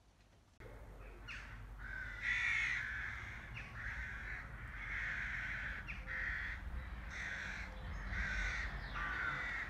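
Crows cawing over and over, harsh calls about once a second, over a low outdoor rumble; the calls begin about half a second in.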